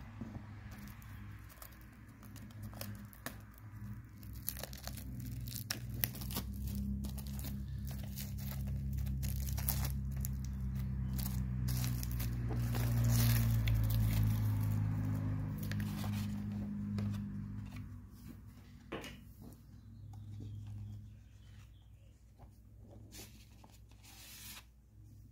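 Plastic shrink wrap being torn and crinkled off a Blu-ray case, with many sharp crackles and handling rustles. A low hum runs underneath and swells in the middle.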